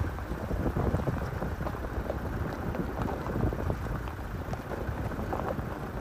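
A vehicle moving along a rough forest track: a steady low rumble with frequent small knocks and rattles.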